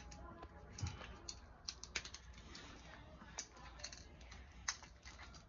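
Faint plastic clicking and scraping as tabs are worked out of a round plastic cable pass-through cover by hand, with a few sharper snaps scattered among the smaller clicks.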